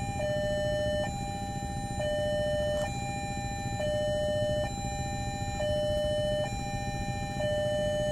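Railway level-crossing warning alarm sounding two alternating tones, a lower and a higher, each held just under a second, signalling that a train is approaching. A steady low rumble runs underneath.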